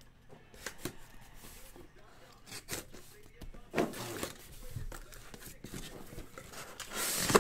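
Corrugated cardboard shipping case being opened and handled: scattered knocks, rubs and scrapes of cardboard, with a louder scraping tear of the case's seam just before the end.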